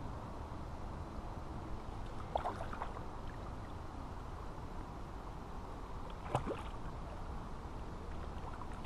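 Hooked trout splashing at the water's surface as it fights the line, two short splashes about two and a half seconds in and again about six and a half seconds in, over a steady low background noise.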